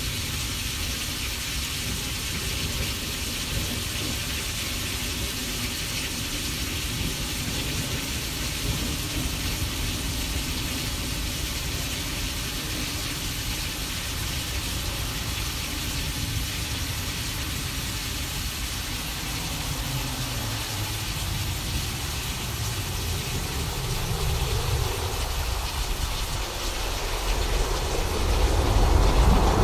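Simulated thunderstorm: a steady rain-like hiss with a low rumble underneath, swelling into a louder rumble of thunder near the end.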